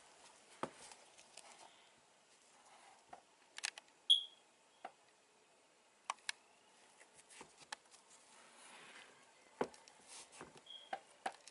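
Faint handling noise as a painted leather sneaker is turned close to the camera: scattered light clicks and taps, with two short high squeaks, about four seconds in and near the end.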